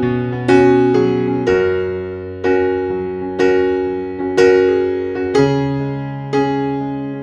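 Background music: a slow keyboard piece of sustained chords, a new chord struck about once a second and fading before the next.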